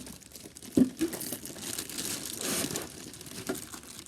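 Plastic wrapping crinkling as it is handled and pulled off, with a single knock a little under a second in.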